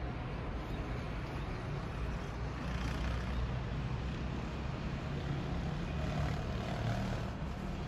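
Steady low rumble of distant road traffic, an even outdoor city hum with no single event standing out.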